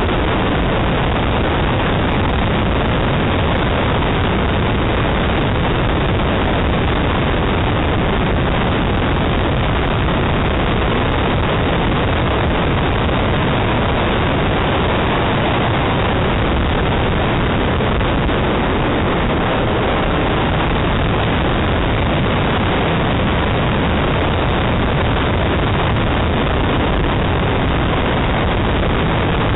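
Ford Escort RS2000 driven through a slalom course, heard through a roof-mounted camera's microphone: a loud, steady rush of wind and engine noise that neither rises nor falls.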